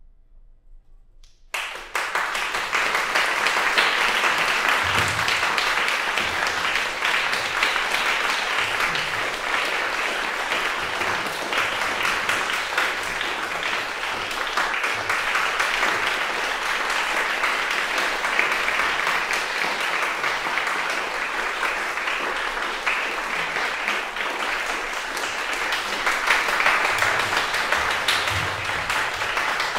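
Audience applause that breaks out suddenly about one and a half seconds in, after a quiet moment, and goes on steadily: the ovation at the end of a piece.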